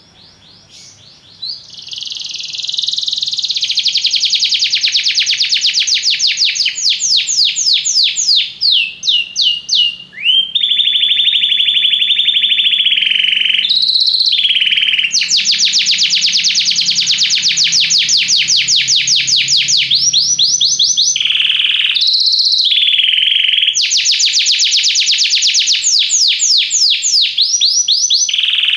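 Domestic canary singing loudly in long, fast trills of rapidly repeated sweeping notes, alternating with steady rolling tones and broken by brief pauses; the song builds up over the first couple of seconds.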